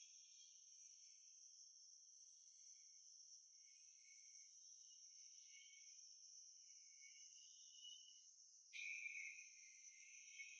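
Near silence: only a faint, steady high-pitched hiss or chirring, a little louder about nine seconds in.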